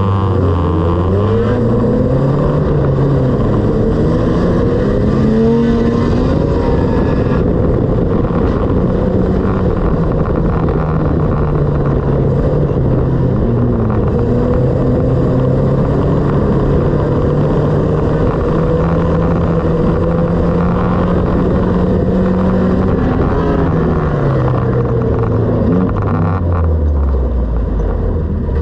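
Banger racing car's engine heard from inside the stripped cabin, revving up over the first few seconds, held at fairly steady revs through most of the run, then easing off and dropping to low revs near the end.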